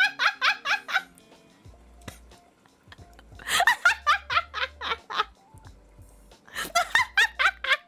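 A young woman laughing in quick, high-pitched bursts, in three bouts: at the start, around the middle and near the end, over soft background music.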